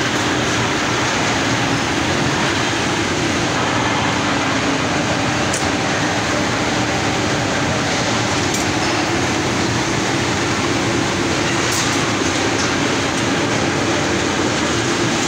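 Steel re-rolling mill in operation, with hot bars running through the rolling stands: a loud, steady machinery noise with a constant low hum and a few sharp ticks.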